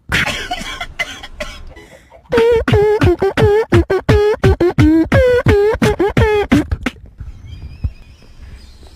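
Beatboxed vocal sound effects: a breathy, hissing sound, then about two seconds in a fast run of short pitched notes, roughly four a second, each dropping sharply in pitch at its start. The run stops about seven seconds in, and faint tones follow.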